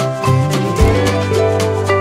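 Background music with a steady beat, held melody notes and a sustained bass line.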